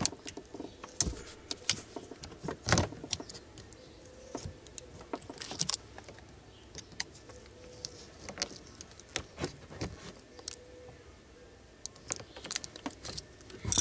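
A small screwdriver clicking and scraping against the plastic housing and metal of a BMW E46 battery safety terminal as the terminal and its cable are worked and shifted. The clicks and small rattles come at irregular intervals, the loudest about three seconds in.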